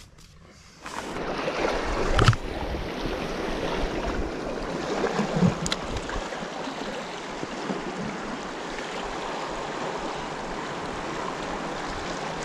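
Steady rush of sea waves on the shore mixed with wind, starting abruptly about a second in. A sharp click about two seconds in, and a fainter one a few seconds later.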